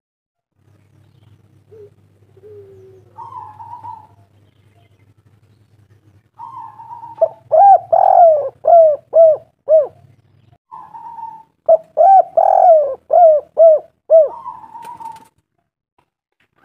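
Spotted dove cooing: a soft note, then two loud phrases a second or so apart, each of about six quick, falling coos.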